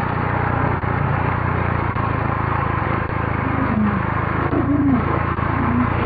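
Air escaping through the stretched neck of a latex balloon: a long, steady low buzz like a fart, with a few short wavering squeaks in the second half.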